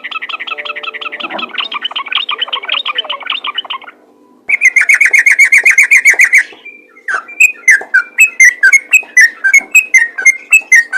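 Yellow-vented bulbul singing a fast chattering 'ropel' song: a rapid run of notes, a brief pause, a loud quick trill, then a string of separate down-slurred whistles about three a second. Under the song there is a faint steady hum.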